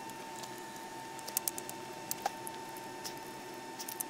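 Light clicks and taps as a MacBook Pro logic board is handled and lifted out of its aluminium housing, over a faint steady whine.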